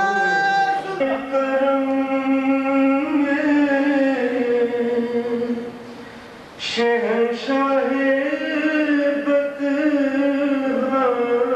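A man singing an Urdu naat without instruments, drawing out long held notes that bend slowly in pitch, with a short break about six seconds in before the next long note.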